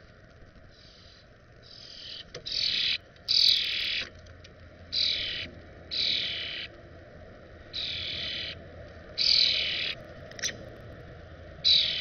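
European starlings at a feeder giving a series of harsh, raspy calls, about nine of them, each lasting up to about a second, starting about a second in.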